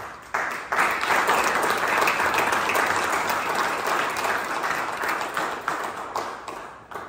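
Audience applauding. It starts within the first second, holds steady, then thins out and dies away near the end.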